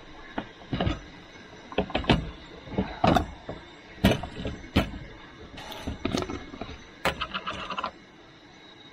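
Camp gear being handled: a string of sharp knocks and clanks, with a quick rattle near the end before it stops.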